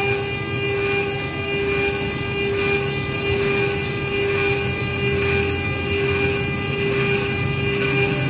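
Micro CNC mill milling an aluminium plate: the spindle runs with a steady whine of several high tones while the small end mill cuts, its chatter and hiss holding an even level.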